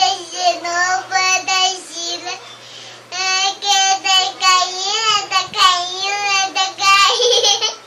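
A child singing a simple tune in a high voice, in two phrases with a short pause about two and a half seconds in.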